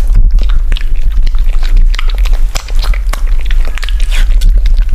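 A puppy licking food off a ceramic plate close to the microphone: wet, irregular licking and smacking, with many quick clicks of tongue and teeth against the plate.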